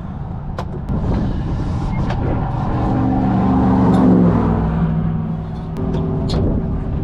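A road vehicle passes by, growing louder to a peak about four seconds in while its engine pitch slides downward as it goes past, over a steady low rumble. A few light clicks come near the start and near the end.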